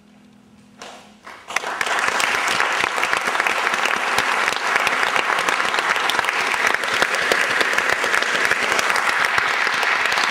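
The faint tail of a held final chord dies away, then about a second and a half in the concert audience starts applauding and keeps on steadily.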